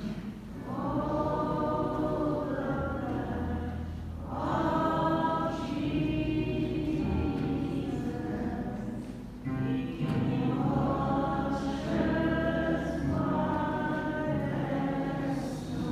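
Slow gospel worship music: a group of voices singing held chords in long phrases over a steady low bass, with brief breaks between phrases.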